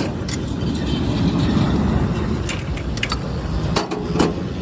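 A handful of sharp knocks and clicks, about six, the loudest near the end, over a steady low engine-like drone.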